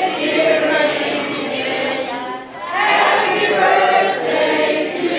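A large group of high school students reading aloud together in unison, many voices overlapping into one choral sound, with a brief pause between phrases about two and a half seconds in.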